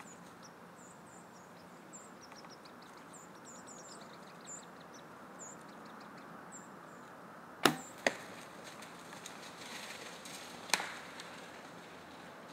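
Small birds chirping faintly, then a bow shot just past halfway: a sharp crack of the release and, half a second later, a second smack as the arrow strikes. This is followed by a few seconds of rustling and a further sharp knock near the end.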